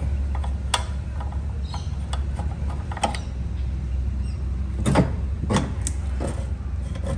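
Handling noise from a petrol lawnmower's plastic fuel cap as it is unscrewed and turned over in the hand: about five scattered clicks and knocks, the loudest about five seconds in, over a steady low rumble.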